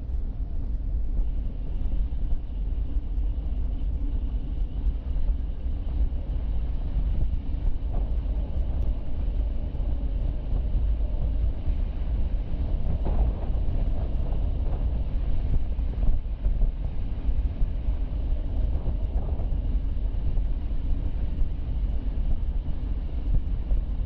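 Car driving, with steady low road and engine rumble picked up by a dashcam, and a faint thin high whine running alongside from about a second in.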